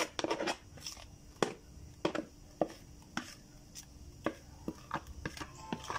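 Irregular knocks and taps as thick cake batter is tipped and shaken out of a plastic blender jug into a round cake pan: several in quick succession at the start, then about two a second.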